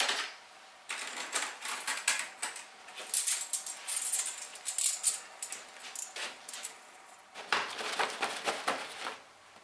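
Thin steel band saw blade rattling and clicking in quick, irregular bursts as it is flicked and folded into coils.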